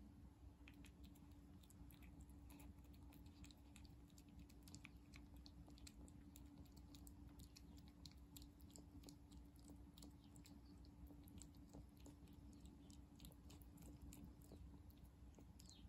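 Calico cat eating wet cat food from a ceramic bowl: a faint, continuous run of small wet chewing clicks and smacks.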